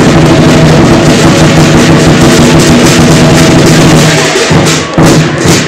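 Very loud lion dance percussion: drum and gongs playing continuously, with a brief easing about four and a half seconds in.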